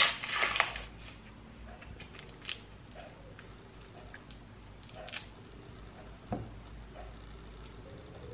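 Small handling noises: a short crackly rustle at the start, a few scattered light clicks, and one dull knock about six seconds in.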